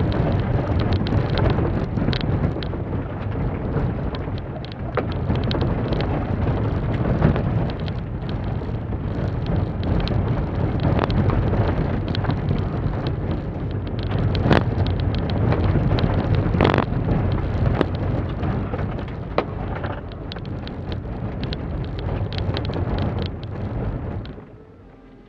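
Inside the cabin of a 2006 Holden Barina driven hard on a loose-surface khanacross course: the engine runs under load over a steady tyre rumble, with many sharp ticks of stones striking the car. The noise falls away sharply near the end as the car slows.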